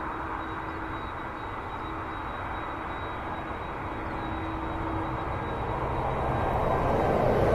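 Airbus A320 jet airliner on final approach with its landing gear down: a steady rushing jet noise that grows louder over the last couple of seconds as it closes in.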